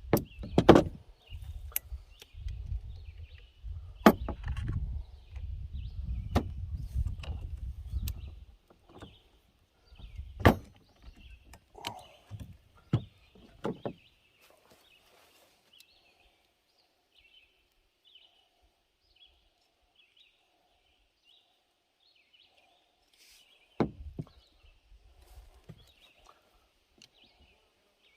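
Sharp clicks and knocks of a cap-and-ball percussion revolver being handled and loaded chamber by chamber, a few close together over the first dozen seconds and one more later. A low rumble of handling noise runs through the first several seconds.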